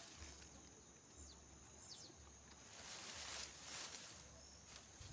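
Near silence: faint outdoor background with a few soft swishes.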